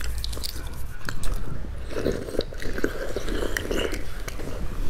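Eggshell crackling and being picked off a boiled egg, then close-miked biting, sucking and chewing as the egg is eaten in the second half.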